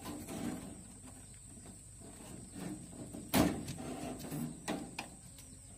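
Rats scuffling and feeding on a carcass, with scattered small clicks and one sharp knock about three and a half seconds in. A faint steady high whine sits underneath.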